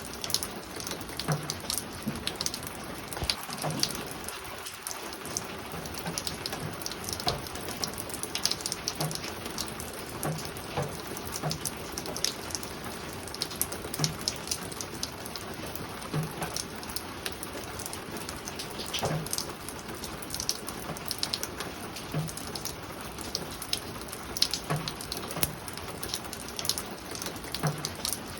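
Spring rain falling on a roof, a steady patter with many separate drops tapping irregularly.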